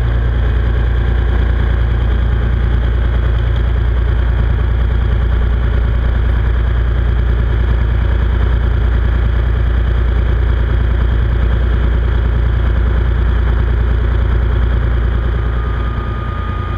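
A beam trawler's inboard engine runs steadily under way while the boat tows its trawl gear, heard from inside the wheelhouse as a loud, even low drone. The drone eases slightly near the end.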